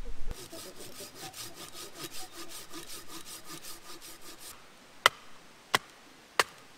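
Silky Gomboy folding pruning saw cutting through a log in quick, even push-pull strokes, about five a second. It stops after about four and a half seconds. Then come three sharp wooden knocks about 0.7 s apart as an Ontario RAT 7 field knife is batoned down into an upright length of wood.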